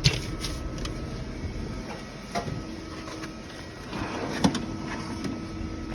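A steady machine hum with a faint steady whine and a few sharp clicks.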